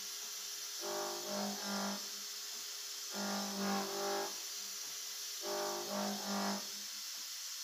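CNC milling machine cutting a slot in a metal block: its axis motors give a pitched, stepped whine in three identical pulses about a second long and a couple of seconds apart, one per pass of the tool, over a steady high hiss.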